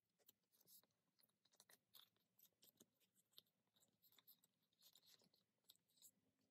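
Faint, irregular rustling and light ticking of plastic card sleeves and binder pocket pages as photocards are handled and slipped into them.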